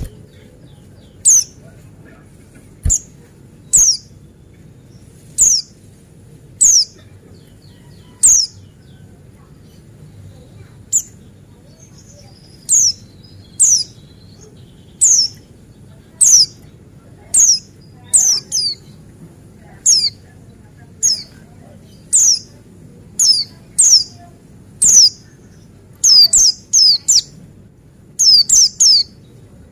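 Buxtoni white-eye (pleci buxtoni) calling: short, sharp, high notes that fall in pitch, repeated about every second or so. Near the end they come quicker, in clusters of two or three.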